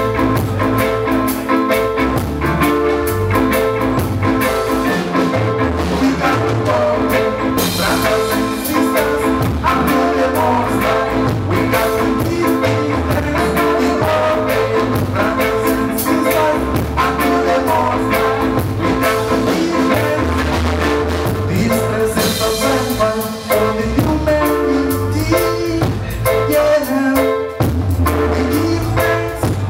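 Live band playing on drum kit, electric guitars and keyboard with a steady beat, with a singer's voice over the band in parts.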